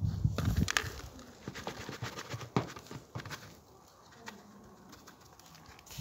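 Hand trowel and fingers working loose garden soil around a young strawberry plant: a few scattered scrapes and taps in the first few seconds, then quieter. A low muffled rumble fills the first half second.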